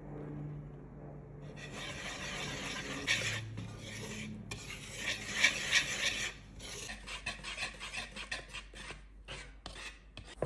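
Wire balloon whisk working flour into thick pancake batter in a bamboo bowl: a continuous scraping, rasping stir for the first several seconds. It then turns into quick regular strokes, about four a second, against the side of the bowl as the batter is beaten smooth.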